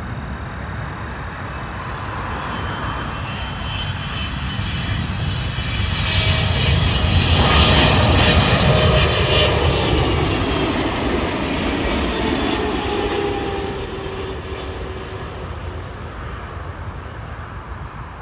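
Boeing 777-200LR jet passing close overhead on approach, its twin GE90 turbofans whining and rumbling. The sound builds to its loudest about eight seconds in, then fades as the engine whine drops in pitch.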